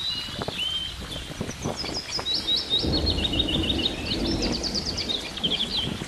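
Small birds singing in rapid runs of high chirps and trills over the babble of a shallow stream running over rock. A low rumble rises about three seconds in and dies away about two seconds later.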